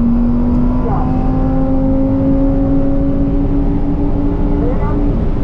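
Lamborghini Huracán's 5.2-litre V10 heard from inside the cabin under full throttle, its steady note slowly rising in pitch as the car accelerates, with a brief dip in pitch near the end.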